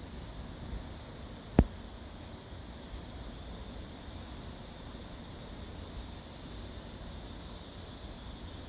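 Steady outdoor background hiss with insects chirring, and one sharp click about a second and a half in.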